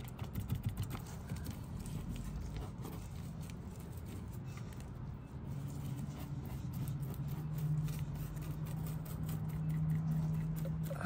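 A paint brush dabbing and stroking resin onto a fiberglass bumper patch, heard as a run of quick soft taps. Under it runs a low steady hum that grows louder about halfway through.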